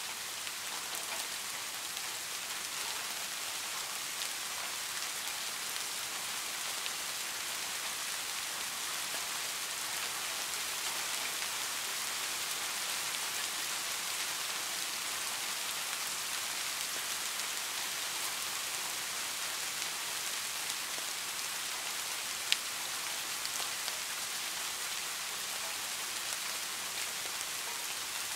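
Steady rain falling, an even dense hiss with scattered faint drop ticks. A single sharper tick stands out about three-quarters of the way through.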